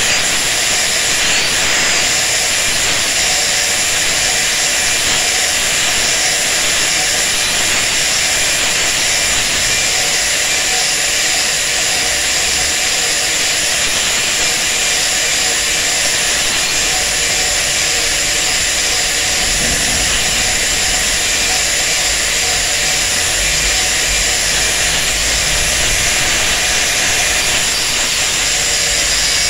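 Handheld electric angle grinder running steadily with a red abrasive disc pressed against the edge of a knife blade cut from old saw-blade steel. It makes a steady high whine over a hiss of metal being ground.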